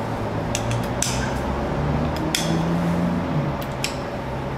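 Scattered sharp metal clinks of a socket and long bar being handled and fitted onto the connecting rod cap bolts of a Toyota 2TR-FE engine block, for the bolts' final 90-degree tightening turn. A steady low hum runs underneath.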